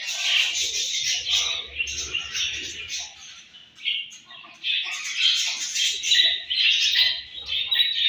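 A flock of budgerigars chattering with busy, overlapping high chirps while feeding at seed, with a short lull around the middle before the chatter picks up again.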